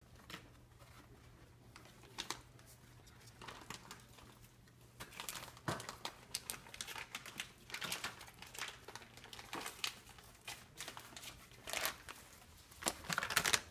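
A crinkly bag crackling and rustling in irregular bursts as a dog pushes its head into it and noses around inside, loudest near the end.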